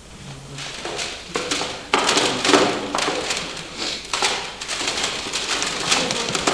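Plastic CD cases clattering and knocking as they are rummaged through and picked up, a run of irregular clicks and taps that gets busier about two seconds in.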